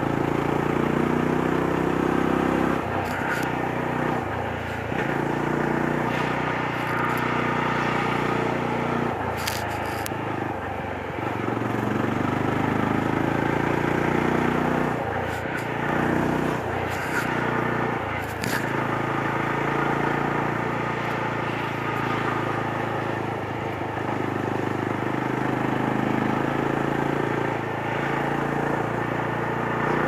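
Yezdi Roadster's 334 cc single-cylinder engine and exhaust running steadily while riding through bends at around 30 km/h. The engine note rises and falls with the throttle and dips briefly a few times.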